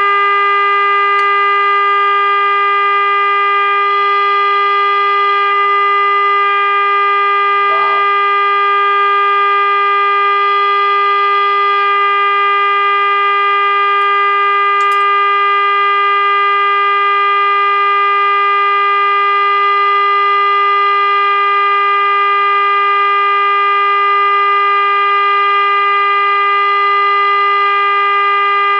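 Steady single-pitch test tone with harmonics from a 1947 Admiral AM radio's speaker: the signal generator's modulated 455 kHz signal passing through the set's IF stages during alignment.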